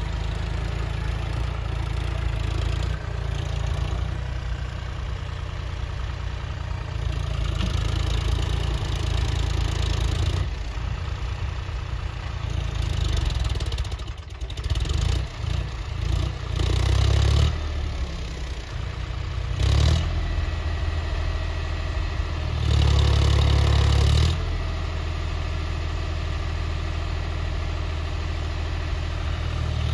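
John Deere tractor's diesel engine running steadily under load while pulling a tillage implement through the soil. There are a few brief louder surges in the second half.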